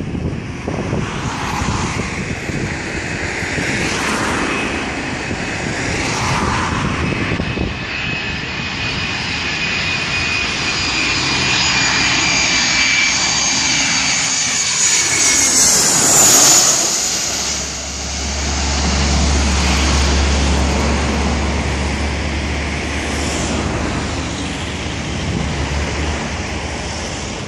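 Boeing 737-300's CFM56 jet engines on final approach: a rising whine with high tones that slide down in pitch as the airliner passes low overhead about 16 s in, followed by a steady low rumble as it moves away onto the runway.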